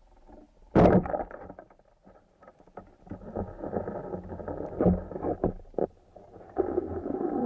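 Muffled water noise during spearfishing: a sharp knock about a second in, then two stretches of rushing, sloshing noise with bumps.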